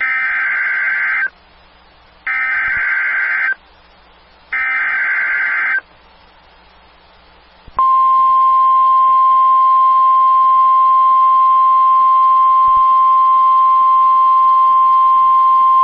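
Emergency Alert System SAME header: three harsh, screeching digital data bursts, each about a second long, with about a second between them. About eight seconds in, the steady single-pitch 1050 Hz NOAA Weather Radio warning alarm tone starts and holds without a break.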